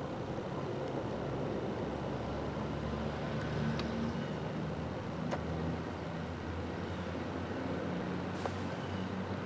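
MG Midget convertible's small four-cylinder engine idling steadily, with a few faint ticks over it.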